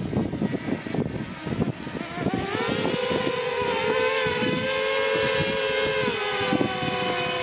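DJI Mini SE drone's propellers whining close by: a steady multi-toned whine that rises in pitch a couple of seconds in, holds, then dips slightly near the end. A low, gusty rumble on the microphone comes before the whine.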